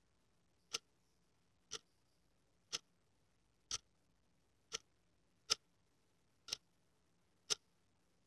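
Clock ticking: a single sharp tick about once a second, evenly spaced.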